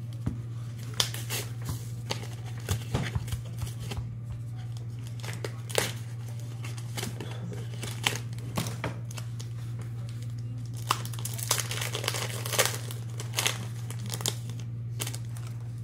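Foil wrapper of a Pokémon trading card booster pack being torn open and crinkled, irregular sharp crackles and rips throughout, over a steady low hum.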